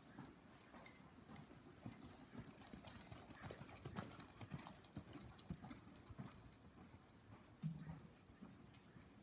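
Faint, irregular hoofbeats of a ridden horse on soft dirt arena footing, with one short low sound about three-quarters of the way through.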